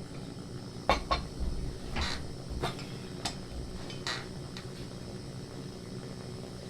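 Camp cookware and utensils clinking: a handful of light knocks and a couple of short scrapes over a steady low hum.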